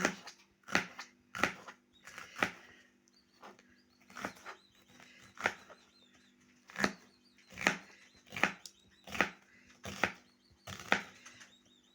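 Knife chopping green peppers on a cutting board: about a dozen separate chops, roughly one a second, unevenly spaced.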